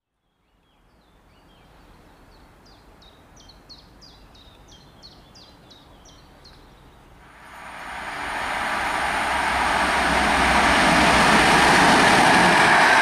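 A small bird chirping a quick run of short, high notes, about three a second, over faint outdoor background. Then, about seven and a half seconds in, an EP09 electric locomotive hauling a passenger train comes past close by, the rushing rail noise rising quickly to loud and staying loud.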